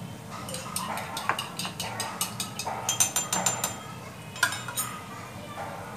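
A metal teaspoon clinking and tapping against kitchenware: a quick run of light clicks, with a flurry of ringing clinks about three seconds in and one more tap near the end.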